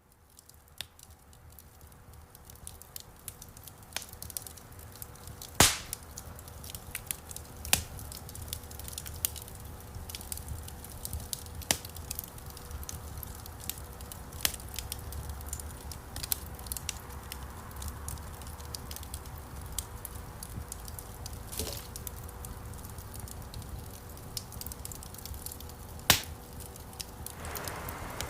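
Burning wood crackling, with frequent small snaps and a few louder pops over a low steady rumble of the flames. It fades in over the first few seconds.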